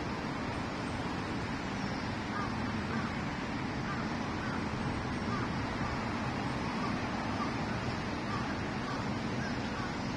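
Steady outdoor background hiss, with faint short calls repeating every half second or so from about two seconds in.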